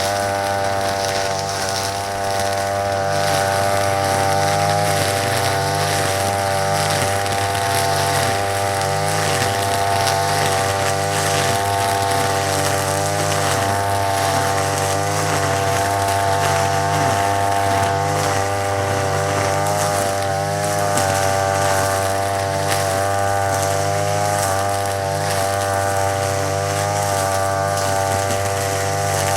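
Petrol brush cutter fitted with nylon trimmer line, its engine running steadily, the pitch wavering slightly.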